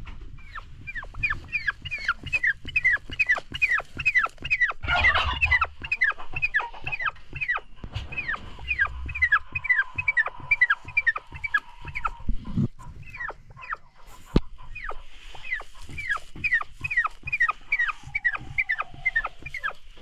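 Broody turkey hen on her nest calling in a rapid run of short, falling notes, three or four a second, with a brief rustle about five seconds in.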